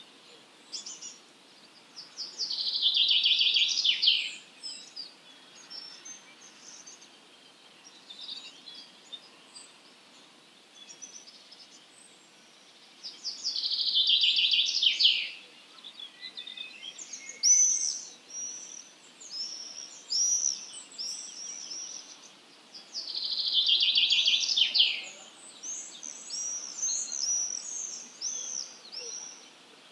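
Songbirds at dawn: one bird repeats a loud, dense trilled phrase about two seconds long three times, roughly every ten seconds. Other birds give shorter, high chirping notes between the phrases.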